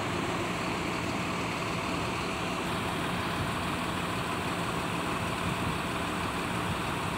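Front-engined Mercedes-Benz bus diesel engine idling steadily, running very smoothly.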